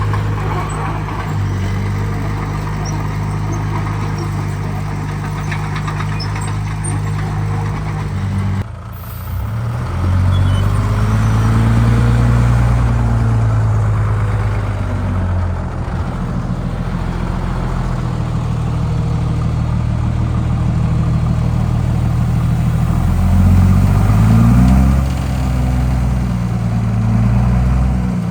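Heavy construction machine's diesel engine working: a steady low run, a brief drop about nine seconds in, then revving up and down under load, with a stronger rise near the end.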